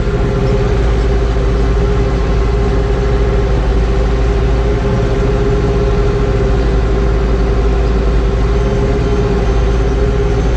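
JCB telehandler's engine running steadily, heard from inside its cab, with a steady hum over a low rumble.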